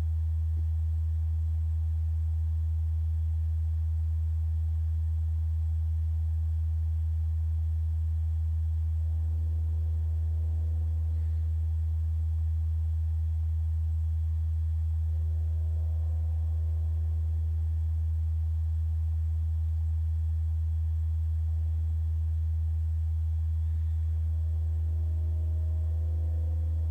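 Steady low-pitched electrical hum at an unchanging level, with a few faint higher tones coming and going.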